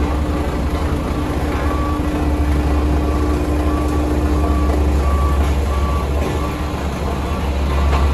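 Heavy diesel construction machine running with a low, steady rumble while its reversing alarm beeps over and over at a bit more than one beep a second.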